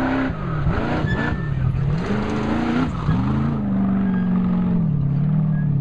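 Off-road race vehicle's engine revving hard as it charges past on dirt, its pitch climbing and dropping several times in quick throttle bursts. About three seconds in it settles into a steadier note that steps lower as the vehicle moves away.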